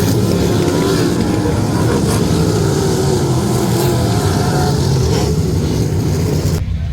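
Sprint car engines running hard on a dirt oval, the pitch rising and falling. The sound cuts off sharply just before the end.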